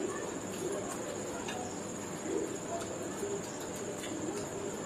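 Two people chewing mouthfuls of raj kachori, with faint crunches, and a low cooing sound about two and a half seconds in, over a steady high electrical whine.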